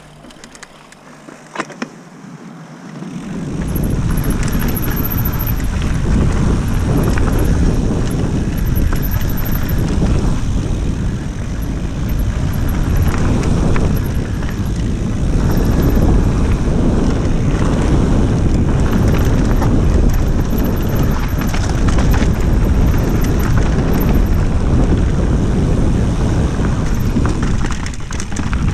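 Mountain bike descending a rough forest trail at speed: steady rumble and rattle of tyres and frame over dirt and rocks, with wind rushing on the microphone. It starts quieter, with a couple of clicks, and becomes loud about three seconds in.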